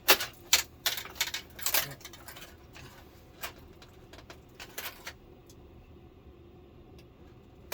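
Quick light clicks and plastic rattling from the backlight strips and their connectors being handled inside an LCD television. The clicks come thickly for about five seconds, then thin out to a few faint ticks.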